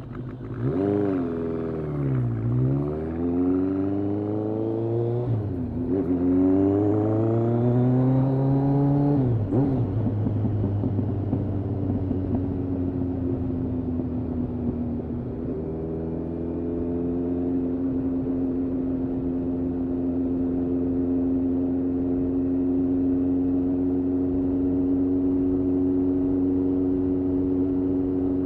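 Kawasaki ZRX1200R's inline-four engine, breathing through Yoshimura TMR-MJN carburettors, under way. It pulls up through the revs twice, with a drop in pitch at each gear change. About ten seconds in it settles to a steady cruise, stepping up slightly about fifteen seconds in.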